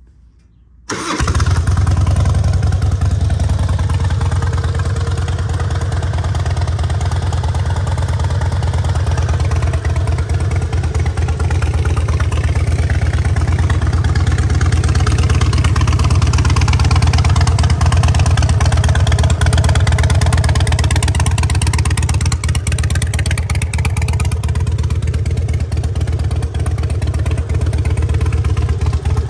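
2005 Harley-Davidson Night Train's 1450 cc fuel-injected V-twin, fitted with a Vance & Hines exhaust, starting about a second in and then idling steadily with a deep rumble.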